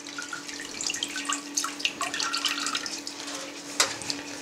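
Whey running and dripping off a cheese mould as it is lifted out of a pot of whey, splashing back into the pot in irregular trickles. A sharp click near the end as the mould is set down on a perforated steel drainage tray.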